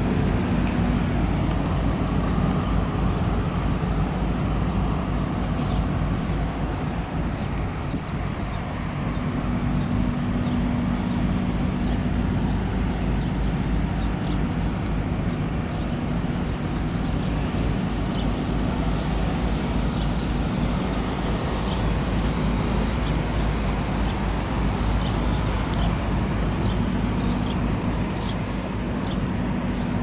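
Road traffic at a busy intersection: cars and trucks passing and idling, with a steady low hum under it.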